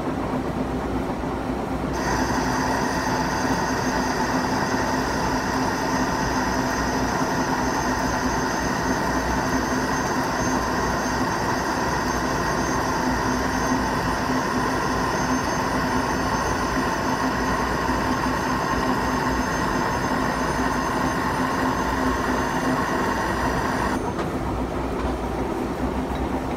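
Lathe running with a boring bar cutting inside a steel tube: a steady machining noise with a high ringing tone. The cut starts about two seconds in and stops shortly before the end, leaving the lathe running.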